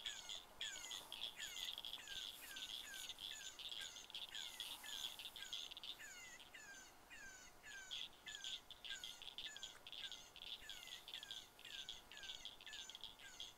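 Faint, evenly repeated chirps, each sliding down in pitch, about two a second, over a steady high-pitched trill.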